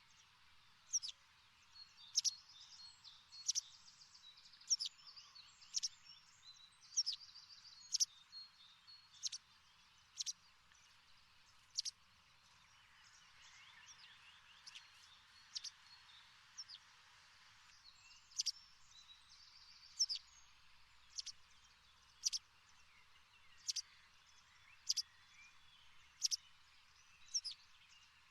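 Birdsong: one bird repeating a short, sharp descending chirp about once a second, with softer twittering from other birds and a steady hiss.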